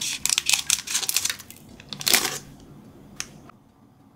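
Blind-bag packaging being crinkled and handled, in a quick run of crackles for over a second, a louder rustle about two seconds in, then a single click.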